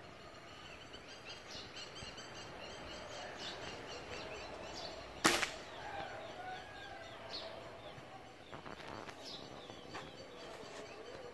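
One sharp shot from an air rifle about five seconds in, over the steady chirping of many small birds.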